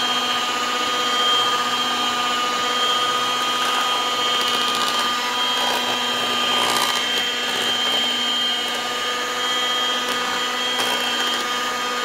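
A 1960s Walita BBP portable electric hand mixer running at a steady speed, its beaters turning in cake batter in a plastic bowl. The motor gives an even whine.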